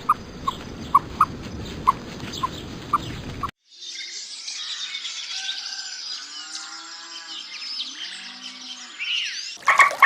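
Cow mooing amid birds chirping. In the first few seconds there is a separate run of short, regular chirps, about two or three a second, which breaks off abruptly.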